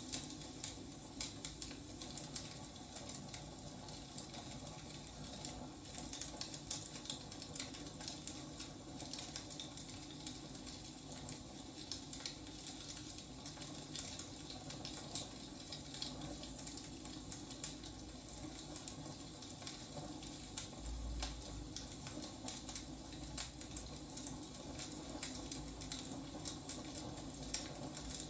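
Wood fire crackling: a steady hiss of burning logs with frequent sharp pops and snaps.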